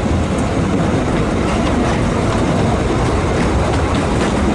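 A 2 ft narrow-gauge steam train running, heard from aboard: a steady rumble and clatter of wheels over the track, with occasional clicks.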